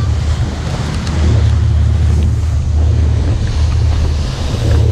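Wind buffeting the microphone over the rush of water and spray along a speedboat's hull as it runs fast across open sea, with a steady low rumble underneath.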